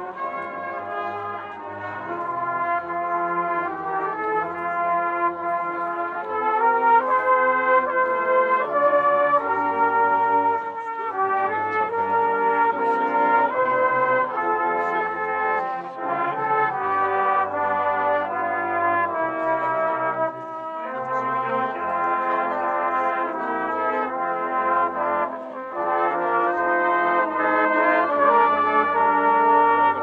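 Street brass band of trumpets, trombones and a sousaphone playing a tune in ensemble, with a bass line moving from note to note under the melody.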